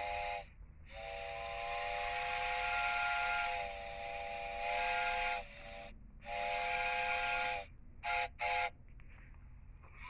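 Steam locomotive chime whistle of LNER A4 No. 4464 Bittern, several notes sounding together as one chord. It gives a series of blasts: a long one of about four seconds, then shorter ones, ending with two quick toots.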